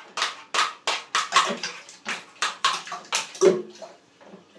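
A hard plastic ice-stick tray being struck repeatedly with a tool to knock frozen ice sticks out into a plastic bucket: about a dozen sharp knocks, roughly three a second, stopping about three and a half seconds in.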